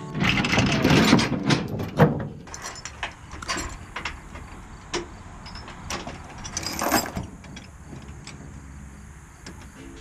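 Steel tie-down chains clattering and clanking as they are hooked onto a compact tractor to secure it on a trailer. The clatter is dense for the first couple of seconds, with one sharp clank about two seconds in, then thins to scattered clinks.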